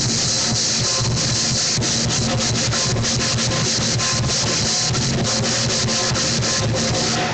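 Lion dance percussion: a Chinese drum with clashing cymbals and gong, played loud and fast, the cymbal clashes running together into a continuous ringing wash over the drum beats.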